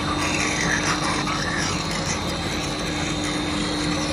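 A knife blade scraping on the water-fed grinding stone of a HAIS wet-and-dry sharpening machine. The scraping comes in uneven strokes in the first second and a half, over the motor's steady hum and a thin high whine.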